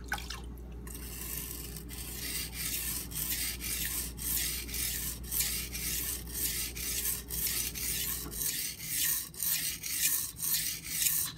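Kitchen knife blade being stroked back and forth across a coarse 180-grit Nubatama Ume waterstone, with a gritty scraping in repeated strokes of about two a second. The steel is being ground on the coarse stone under light hand pressure to set a new 15-degree bevel. It starts about a second in.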